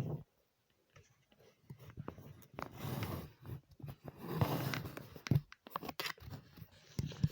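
Rustling and scraping of hair and hands handling a lace front wig, with scattered small clicks.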